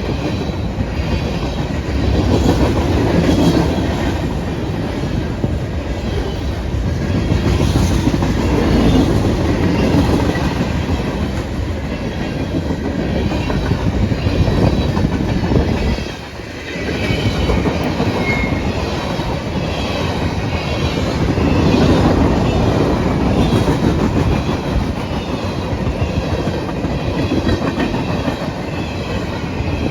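Freight train cars rolling past, a steady rumble of wheels on rail with clickety-clack over the joints, dipping briefly about sixteen seconds in.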